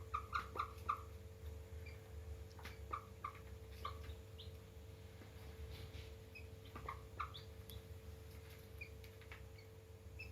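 Young chicks peeping in short chirps, a quick run of four right at the start and scattered single peeps after, over a faint steady hum.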